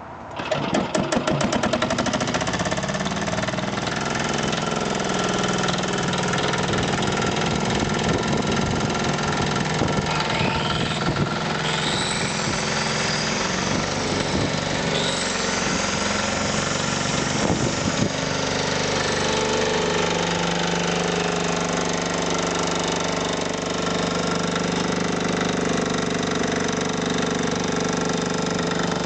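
Petter diesel engine on an Allam generator set firing up: fast knocking that quickens into steady running within a second or two, then running evenly. A faint high whine rises and falls a couple of times midway.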